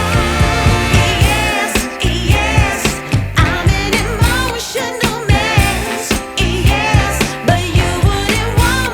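Background song with a sung vocal line over a steady beat and bass.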